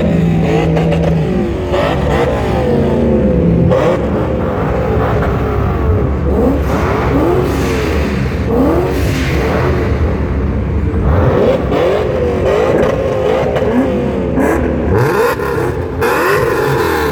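BMW E39 M5's decatted V8 being revved again and again, the exhaust note rising and falling in quick, loud blips over its idle.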